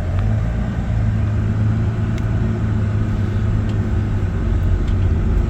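A motor vehicle running, a steady low rumble with no change in pace.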